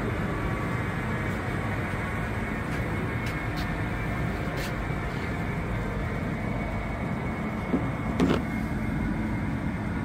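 Circular-saw canter (twin 37 kW saw shafts) and its powered roller conveyor running, a steady mechanical hum with several steady tones; a few light knocks, the loudest about eight seconds in.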